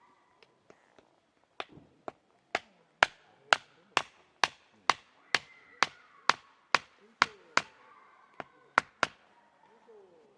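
Wood being chopped: a few light taps, then a steady run of sharp strikes about two a second, each ringing briefly, stopping about a second before the end.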